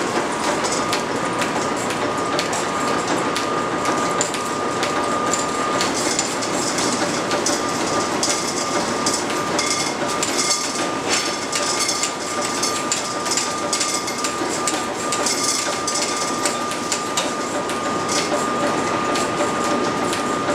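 Early-1900s line-shaft machine shop running: lathe and shaper driven by overhead shafting. There is a steady clatter of irregular clicks and knocks over a thin, steady high whine.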